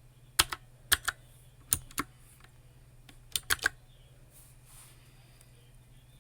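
Computer keyboard keys being typed in three short clusters of two or three keystrokes, followed by a pause of about two seconds.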